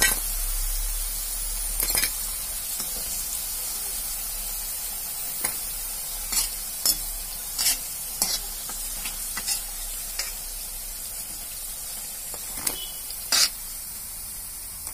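Potato pakoras deep-frying in hot mustard oil in a wok: a steady sizzle. A metal spoon clinks against the pan about ten times as the fried pieces are scooped out.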